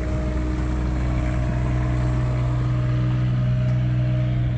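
Steady low drone of a running engine, holding one even pitch.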